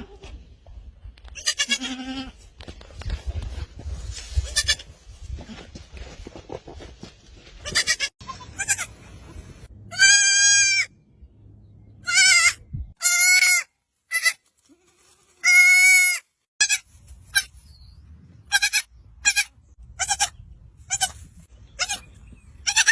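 Goat kids bleating: a few long, high-pitched bleats in the middle, then a quick run of short bleats toward the end.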